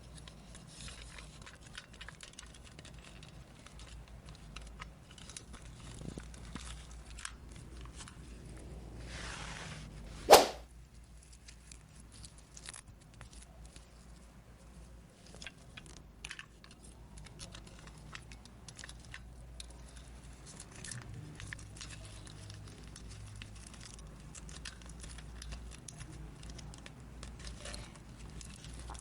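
Hands unpacking plastic toys: faint crinkling and tearing of packaging with scattered small clicks and taps of plastic parts. One sharp, loud click comes about ten seconds in.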